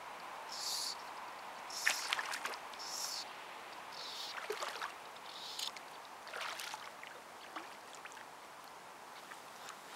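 Water splashing and sloshing as a hooked fish thrashes at the lake surface, in irregular bursts that are loudest about two seconds in and die away toward the end. A short high note repeats about once a second throughout.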